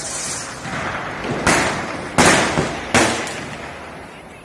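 Diwali firecrackers going off: three sharp bangs, about a second and a half, two and a quarter, and three seconds in, each dying away with an echo.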